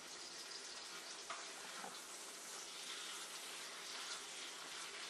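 Bacon frying in a skillet on the stove: a steady, faint sizzle with a couple of small pops about one and two seconds in.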